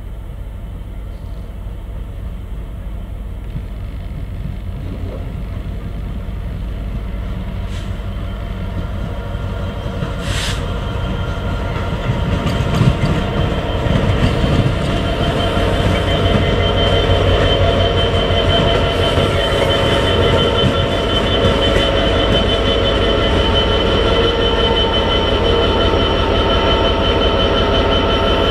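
EMD Class 66 diesel locomotive approaching and passing close by, its two-stroke V12 engine drone growing steadily louder. From about halfway a steady high whine joins in, with a few knocks from the wheels on the track.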